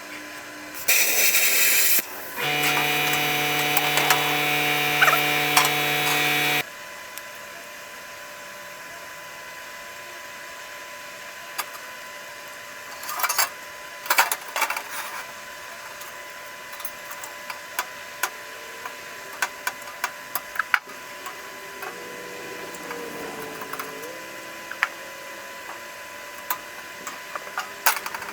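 A power tool cutting steel: a short burst about a second in, then a steady buzzing run of about four seconds that stops abruptly. After it come scattered light clicks and knocks.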